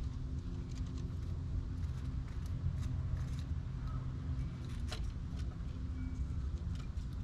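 Steady low outdoor rumble with a faint hum under it, and scattered small clicks and taps from an eastern gray squirrel climbing down to a seed basket and feeding, the sharpest click about five seconds in.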